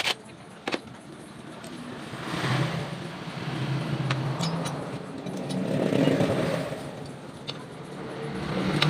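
Motor vehicles passing, each swelling and fading with a low engine hum, about three times, with a few sharp metallic clicks of hand tools at work.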